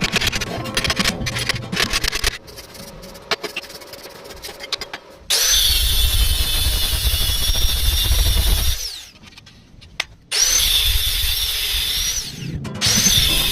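An electric power tool running in three loud bursts, each spinning up with a rising whine and then winding down, after a few seconds of lighter clicking and tapping.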